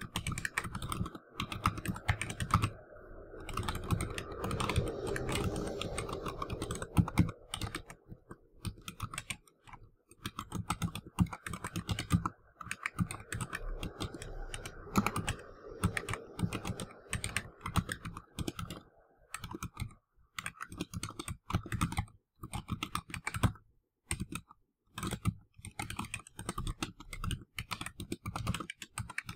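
Touch typing on a computer keyboard: quick runs of keystroke clicks, a word at a time, broken by short pauses between words.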